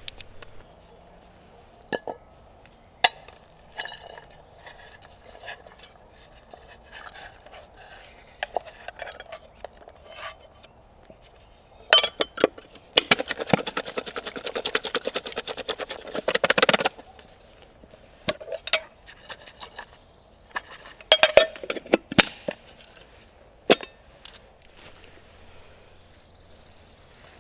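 Metal camp cookware clinking and knocking, with a few seconds of rapid scraping or rattling about twelve seconds in and another run of clinks near the end.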